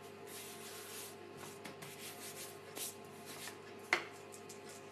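Plain rolling pin rolling over soft gingerbread dough on a floured countertop: a few soft rubbing strokes, with one sharp knock just before the end.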